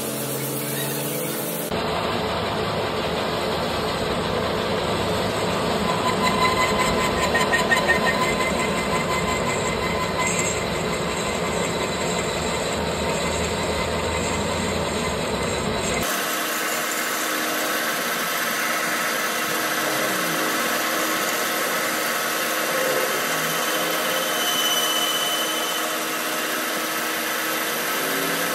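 Lathe running, its tool bit taking cuts on the worn conical tip of a live center that spins against a bar held in the chuck: a steady rattly machine noise, louder for a couple of seconds around a quarter of the way in. The sound changes abruptly about two seconds in and again about halfway.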